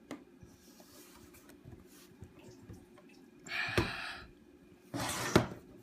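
Mac Mini G4's internal frame being pushed down into its outer case: after a few quiet seconds, a scraping slide with a sharp click just past halfway, then a second scrape with a click near the end. It doesn't sound very healthy.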